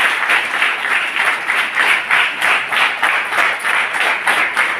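A crowd clapping together in a steady rhythm, about three claps a second.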